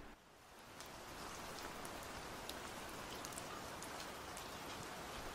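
Steady rain-like patter: an even hiss sprinkled with small ticks, fading in over the first second.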